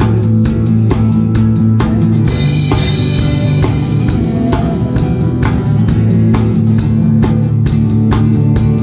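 Live worship band music with the drum kit keeping a steady beat of kick and snare over held low notes, and a cymbal crash about two seconds in.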